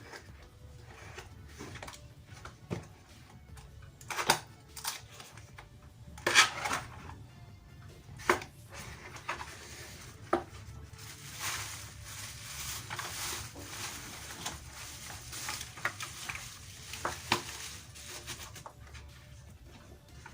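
Unpacking a mechanical keyboard: scattered knocks and clicks of the box and keyboard being handled, with rustling of the packaging in the middle.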